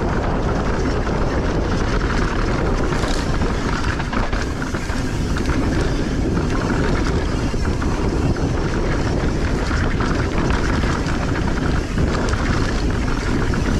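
Mountain bike descending a dry dirt trail at speed: tyres rolling and crunching over the dirt, the bike rattling over bumps, and wind rushing over the camera microphone.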